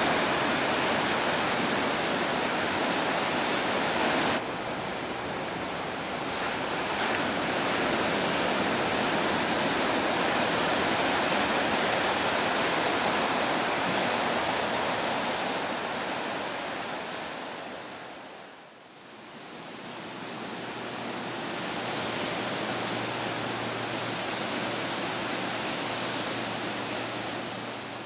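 Ocean surf breaking and washing ashore, a steady rush of wave noise. It drops away briefly about two-thirds of the way through and comes back a little quieter, with a faint steady low hum beneath it.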